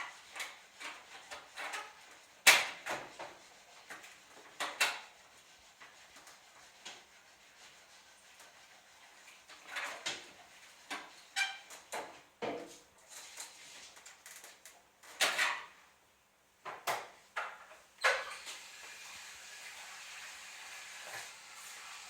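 Microwave oven door that is stuck shut being tugged and worked at: irregular clicks, rattles and knocks from the door and its latch, with the loudest knock a few seconds in.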